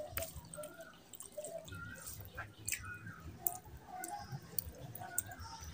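Wet squishing and clicking of a bare hand mixing rice into oily mutton curry on a plate, then wet smacking as a handful is eaten. Many short, irregular wet clicks rather than any steady sound.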